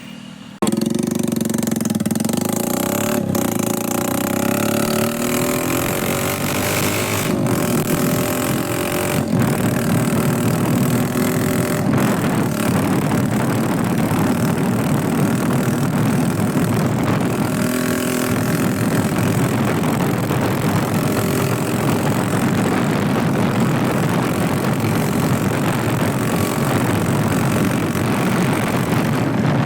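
A motor vehicle driven off at speed for a sound check. Its engine note starts suddenly and climbs over the first several seconds, with a few brief breaks, then runs on at a steady speed under a dense wash of wind and road noise.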